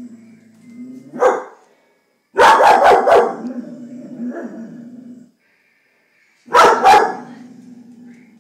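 Vizsla barking at a stink bug: a single bark about a second in, a quick run of four barks, then two more near the end, with a low whine between the volleys.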